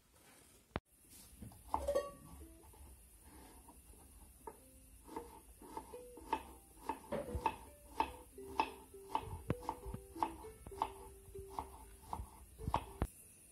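Ukulele being picked, one plucked note after another in a slow, unhurried line, mixed with the light clicks of a knife cutting vegetables on a wooden cutting board.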